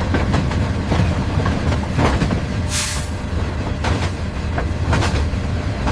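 Train rolling on rails: a steady low rumble with a sharp click about once a second, and a short hiss near the middle.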